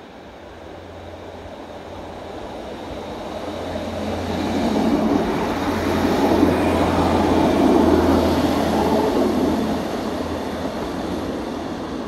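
Diesel passenger train passing through the station. The rumble of its engine and its wheels on the rails builds steadily, peaks in the middle, then fades as it runs away down the line.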